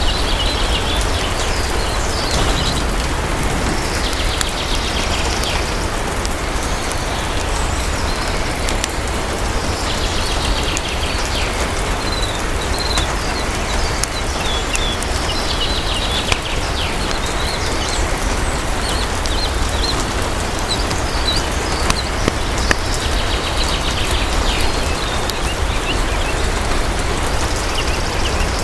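Steady rain falling, with a bird calling in short phrases every few seconds over it.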